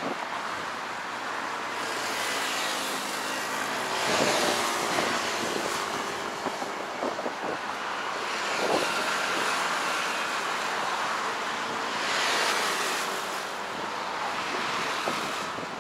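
Road traffic on a city street: vehicles passing one after another, a steady rush of tyre and engine noise that swells three times as cars go by.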